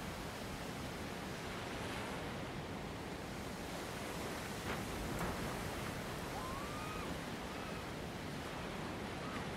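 Sea waves washing against rock with wind, a steady even rush of noise. A few faint short whistled glides come in about two thirds of the way through.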